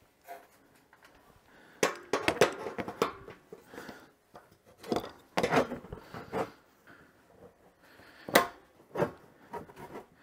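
Metal clicks and knocks of vise-grip locking C-clamps being set and tightened onto a plastic ski skin, in several irregular clusters.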